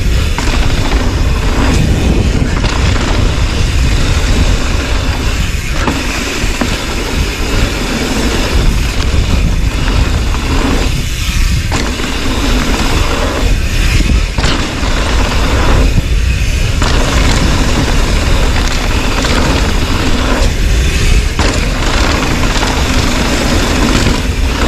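Wind buffeting the camera microphone and a mountain bike's knobby tyres rolling over packed dirt during a fast descent: a loud, steady rumble and rush with a few brief dips.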